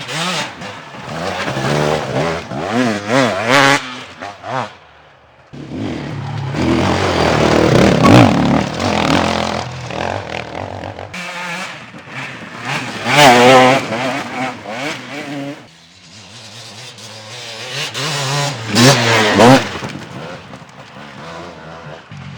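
Enduro dirt bike engines revving and accelerating hard, the pitch rising and falling over and over in several loud bursts. The bursts are separated by brief quieter stretches between bikes.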